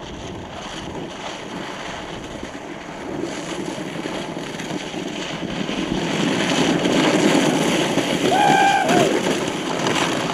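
Several people sliding down an icy path on their backsides, clothing and snow shovels scraping over the ice. The scraping gets louder as the sliders come closer. A short yell comes about eight and a half seconds in.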